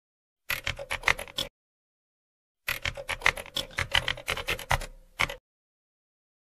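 Two bursts of rapid clicks, about ten a second: a short one of about a second, then a longer one of about two and a half seconds. It is a typing-style sound effect for an animated on-screen title.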